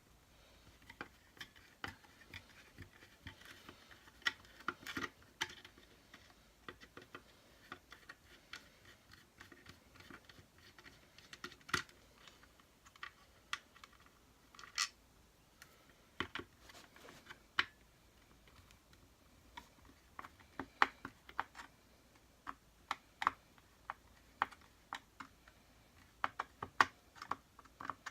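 Hand screwdriver working flat-headed screws out of a Hoover Turbopower Junior vacuum cleaner's plastic body: irregular small clicks, taps and scrapes of metal on screw heads and plastic, a few sharper knocks about twelve and fifteen seconds in.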